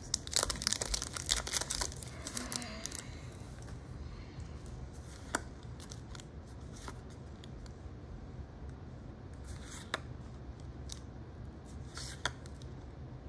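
Foil wrapper of a Pokémon booster pack crinkling and tearing for about the first three seconds, then quiet with a few faint separate clicks.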